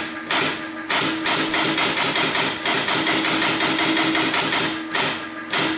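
Teletype Model 19 clattering as a line is typed fast on its keyboard: a dense, even run of mechanical clicks with a steady hum beneath, pausing briefly about a second in and near the end.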